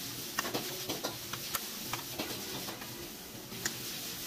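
Eating sounds: forks clicking and scraping against a ceramic plate of chow mein, with close-up chewing. The clicks come irregularly, several a second.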